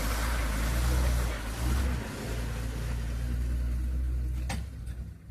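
Bus engine running close by with a deep steady rumble and hiss, which drops away suddenly after a short knock about four and a half seconds in.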